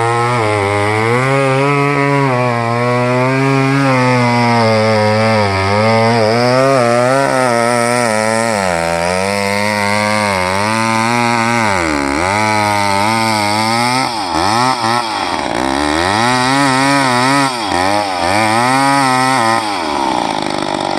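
Chainsaw running under load as it cuts into a tree trunk, its engine pitch wavering as the chain bites. In the second half the revs dip and climb again several times. Near the end the saw drops off the throttle.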